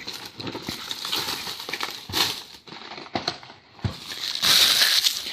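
Plastic wrapping crinkling and tearing as a trading card hobby box is unwrapped and opened, with irregular crackles and a longer, louder rasp about four and a half seconds in.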